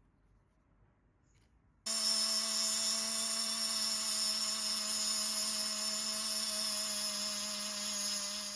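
A small electric power tool switched on about two seconds in and running at a steady high-pitched whine.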